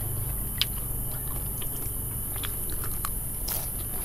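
Chewing crispy fried spring rolls: scattered soft crunches and crackles over a steady low hum.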